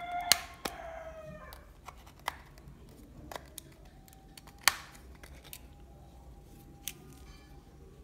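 Sharp plastic clicks and snaps as the back cover of a budget feature phone is pried off by hand. There are about six, and the loudest snap comes a little over halfway through.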